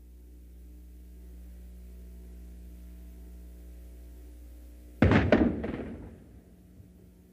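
A blank shot from Texas A&M's Spirit of '02 field cannon about five seconds in: a sudden loud boom with several sharp cracks within half a second, echoing briefly and fading within about a second. Before it there is only a low steady hum.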